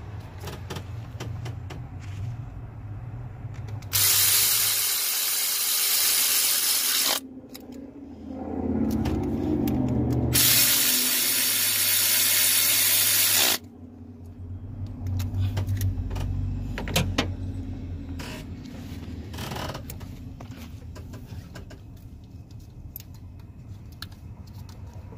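Cordless electric ratchet running twice, about three seconds each time, about four and about ten seconds in. It is driving down the 10 mm bolts of the lifter holder in the engine block. Sharp clicks and knocks of tool and parts handling come between and after the runs.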